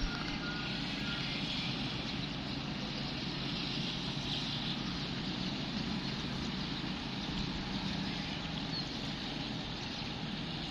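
Distant diesel locomotive engine running, heard across open ground as a steady low rumble.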